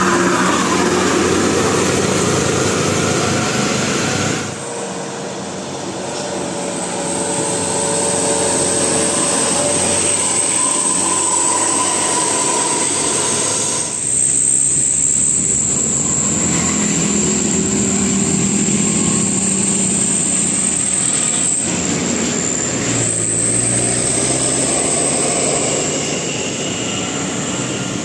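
Large buses passing close by, with loud engine and road noise, in several short clips cut together.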